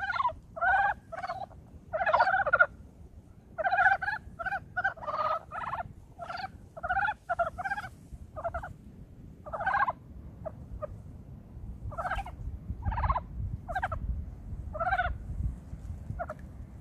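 A chorus of mountain frogs giving their early-spring breeding calls: short clucking trills, many overlapping at first, then fewer and more spaced out. A low rumble runs underneath and grows stronger in the second half.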